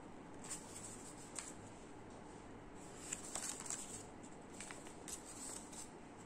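Cut-out paper flowers rustling and brushing against each other and the paper sheet as they are handled, in a few short, faint bursts, the busiest cluster about three seconds in.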